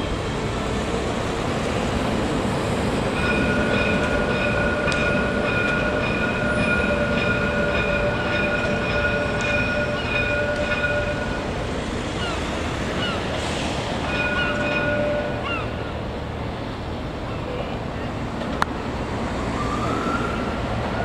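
Alstom Citadis Luas tram crossing a road bridge with a steady high-pitched whine over city traffic noise. The whine fades out and returns briefly about two-thirds of the way through. Near the end a siren starts to rise.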